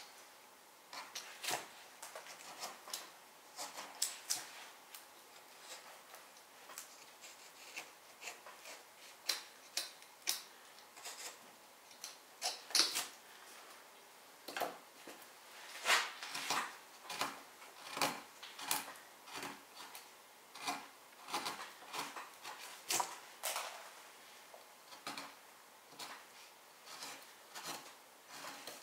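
Carving knife slicing into wood in short, irregular cuts, roughly one a second, some sharper and louder than others.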